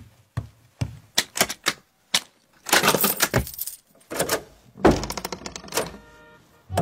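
A run of sharp metal clicks and clacks, in bunches, as several locks and bolts on a front door are undone one after another; near the end the door is pulled open.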